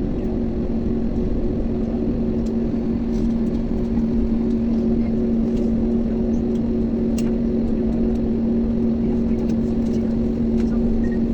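Airbus A321 cabin noise while taxiing: a steady low drone from the engines and air systems, with two held hum tones. A few faint clicks are scattered through it.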